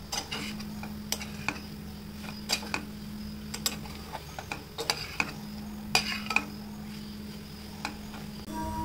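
A spoon stirring food in a cooking pan: irregular scrapes and clicks against the pan, over a steady low hum.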